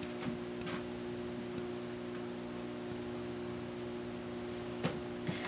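A steady electrical hum, with a few faint soft rustles and ticks as cotton T-shirt strips are pulled and knotted by hand.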